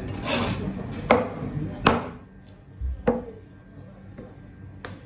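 Heavy knife chopping through narrow-barred mackerel flesh and bone onto a cutting board: four sharp knocks at uneven intervals, with a short rasping cut near the start.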